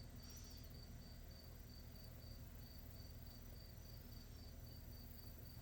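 Near silence, with a cricket chirping faintly and evenly, about two to three chirps a second, over a low steady hum.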